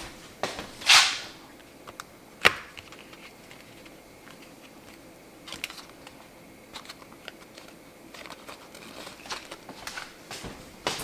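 Kitchen handling noises: scattered light clicks and knocks of cookware and utensils, with a brief swish about a second in and one sharp knock about two and a half seconds in.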